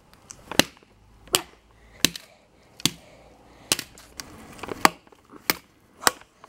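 Sledgehammer repeatedly striking a hard drive lying on concrete: about eight sharp blows, roughly one every three-quarters of a second.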